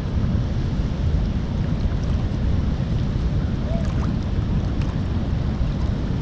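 Wind buffeting the camera's microphone: a steady, low, rumbling rush.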